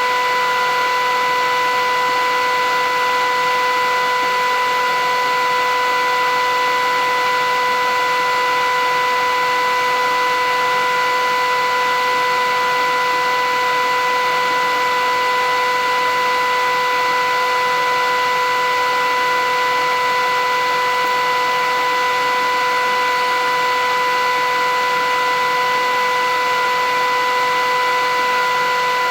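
Philips 8000 series vacuum cleaner running steadily: a constant motor whine over an even rush of air, with no change in speed.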